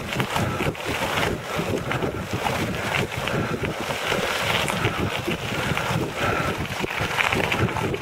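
Recumbent bike's tyres rolling over a loose gravel road, with a steady crunching rush and many small irregular ticks and rattles, and wind buffeting the microphone.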